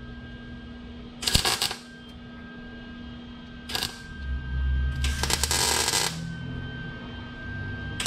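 Wire-feed MIG welder tacking a steel patch panel into a car's trunk pan: three short bursts of crackling arc, about a second in, near four seconds, and a longer one around five seconds, with a faint steady hum between them.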